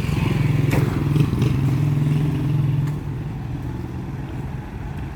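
A motorcycle engine running close by, loudest for the first three seconds and then fading as it moves off, with a few light clatters about a second in.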